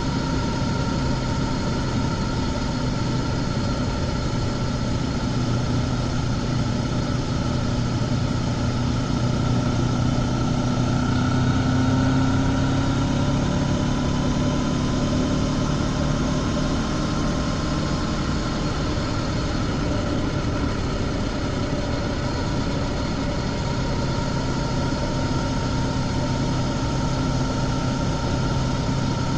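Honda CB500X's parallel-twin engine with stock exhaust running steadily while cruising, the note rising a little about halfway through and then easing back.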